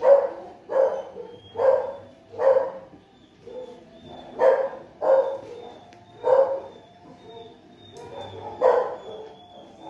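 Small shaggy white terrier-type dog barking: about eight sharp barks, the first four in quick succession, then a group of three after a short pause and one more near the end.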